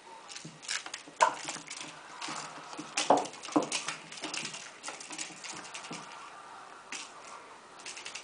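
Irregular knocks, taps and scrapes as a kitten bats and chases a red ball-on-a-wire cat toy across a tile floor, with paw and body rustles between them; the sharpest knocks come about a second in and again around three to three and a half seconds in.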